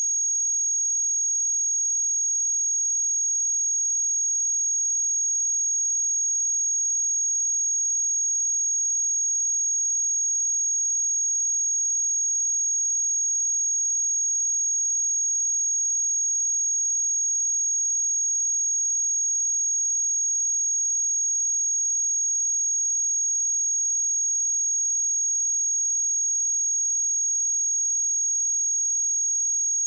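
A pure 6586 Hz sine-wave test tone, a single steady high-pitched whistle held at constant pitch and level.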